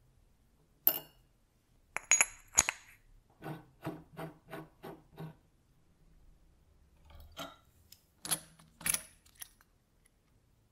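Steel tools and metal parts being handled on a workbench: sharp metallic clicks and clinks, then a run of about seven evenly spaced knocks in the middle, then a few more clinks near the end.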